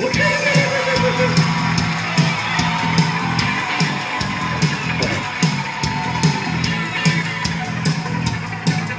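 Upbeat recorded song with a steady drum beat, about two beats a second, over a pulsing bass line. It is the animatronic show's race theme song starting.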